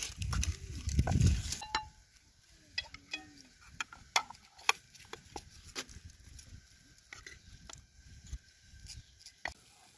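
A loud, low-pitched call for the first second and a half, then a wooden spoon knocking and scraping against a steel pot in a string of sharp, irregular taps as a minced filling is scraped out into a bowl.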